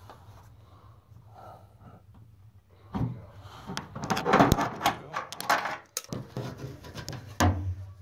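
Handling noise from parts being refitted inside a washing machine cabinet: quiet at first, then from about three seconds in a busy run of clicks, knocks and scraping, with a louder knock near the end.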